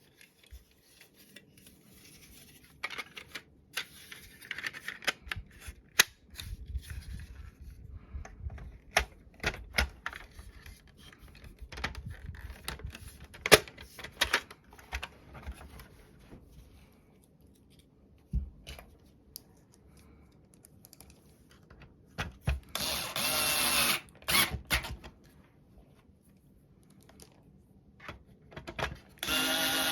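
Parts of a Sharp KI-BX70 air purifier clicking and knocking as they are fitted back together, then an electric screwdriver running twice, a couple of seconds and then about a second, as screws are driven in.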